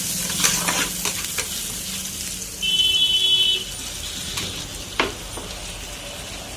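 Dal tadka frying and sizzling in a hot pan while it is stirred, with metal clicks and scrapes of the spatula against the pan. About halfway through there is a brief high-pitched tone lasting about a second, and later a single sharp click.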